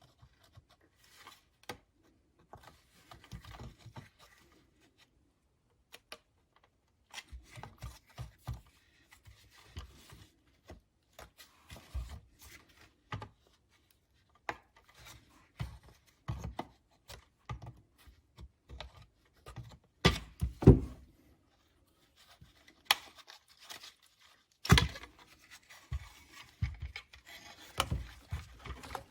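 Plastic clicks, rubs and scrapes of a trunk release switch being worked out of its plastic trim garnish by squeezing its two retaining tabs, with a few louder knocks in the last third.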